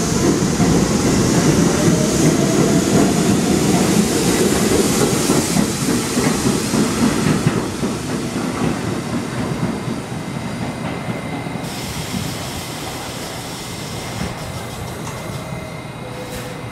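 R68-family subway trains running through the station, a loud steady rumble with a high hiss. It eases off after about eight seconds, and a quieter train runs on after that.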